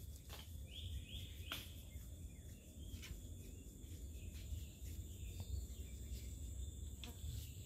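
Swamp insects buzzing in steady high tones, with a couple of short bird chirps about a second in and a few scattered sharp clicks over a low rumble.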